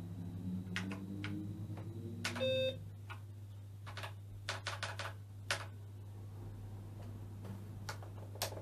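Keys clicking one by one on the BBC Master 128's keyboard, with a short beep from the computer about two and a half seconds in. A steady low hum runs underneath.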